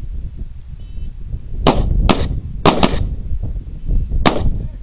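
Handgun shots on a firing range: five sharp reports, coming as a pair, a quick double and then a single shot, over a steady low rumble of wind on the microphone.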